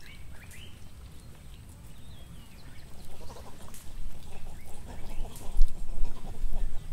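Vervet monkeys calling: short high squeaks in the first couple of seconds, then a run of repeated short chattering calls from about three seconds in. A low rumble grows louder near the end.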